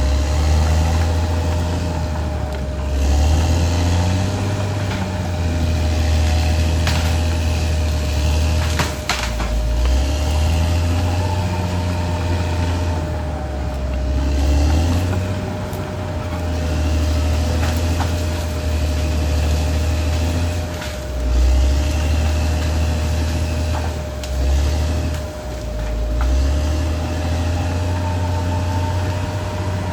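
Caterpillar D6R XL bulldozer's diesel engine working under changing load, its low drone dipping and swelling every few seconds. A steady thin whine runs under it, and a few sharp knocks come through.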